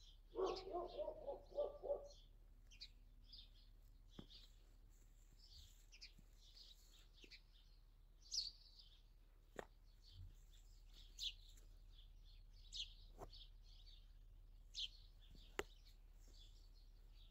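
Small birds chirping and twittering on and off, faint and high-pitched. A dog barks a quick run of about six times in the first two seconds.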